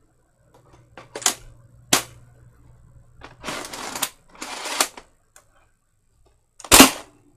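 Toy Nerf blaster being handled and fired: a few sharp mechanical clicks, two short rushing bursts in the middle, then a loud sharp snap near the end.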